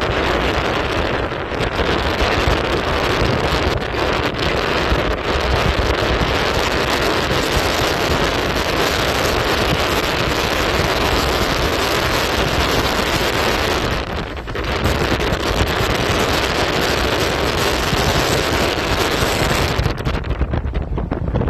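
Strong wind blowing and buffeting the microphone, a loud steady rushing that eases briefly about two-thirds of the way through.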